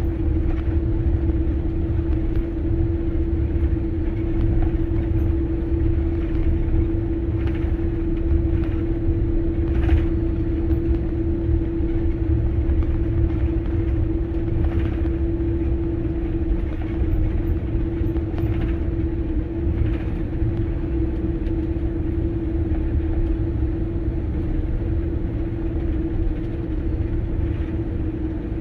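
Airliner cabin noise during taxi: the jet engines' steady hum over a low rumble from the rolling aircraft, with a few soft knocks scattered through it.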